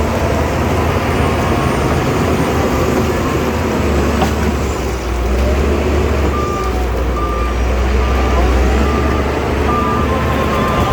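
Shantui DH17C2 bulldozer's diesel engine running steadily, with a reversing alarm beeping about twice a second from about six seconds in.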